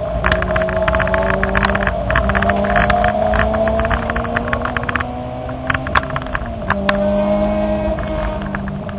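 Car engine heard from inside the cabin while lapping a race track, pitch climbing steadily under acceleration with a drop at a gear change about two-thirds through. Frequent sharp clicks and rattles sound over the engine.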